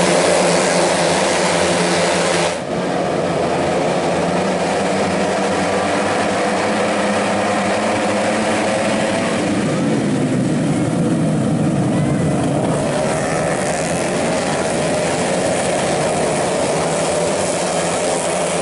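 Tuned 131cc automatic-scooter race engines running hard on the circuit, their pitch bending up and down as bikes pass near the middle.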